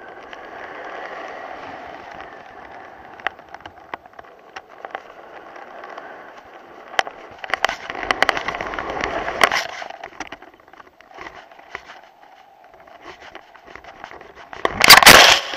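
Wind and the flapping stunt kite heard from a camera mounted on the kite, with scattered clicks and rattles that thicken for a couple of seconds past the middle. Near the end comes a loud crash as the kite and its camera hit the grass.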